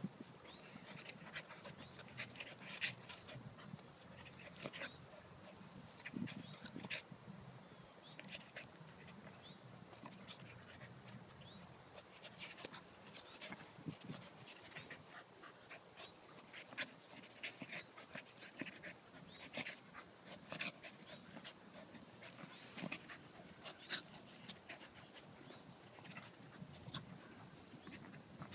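Two dogs playing: panting and scattered short play noises as they roll and wrestle on grass.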